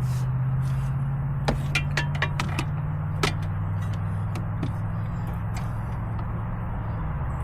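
Metal hand tools and sockets clinking and clicking as they are handled, a dozen or so sharp clinks clustered in the first half with a few single ones later, over a steady low hum.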